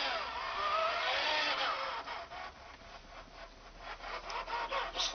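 Toy car pushed across a fabric bedspread: a rough rubbing and scraping, loudest in the first two seconds with faint gliding tones over it, then a run of light scratchy ticks.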